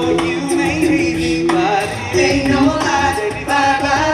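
Live pop singing by several performers into handheld microphones, their voices in harmony over music, amplified through a sound system.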